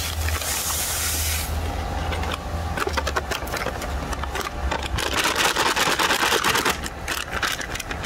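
Dry pay dirt of sand and small gravel poured from a bag into a plastic gold pan, a grainy hiss with pebbles rattling. It is heaviest from about five to seven seconds in, over a steady low rumble.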